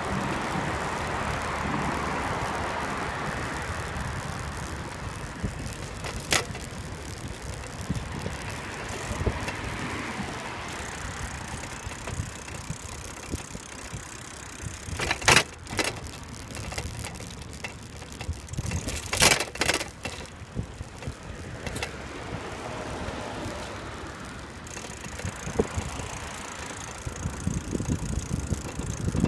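Riding noise from a camera mounted on a moving bicycle: steady wind and tyre rumble on the paved path, with sharp rattles and knocks several times as the bike goes over bumps.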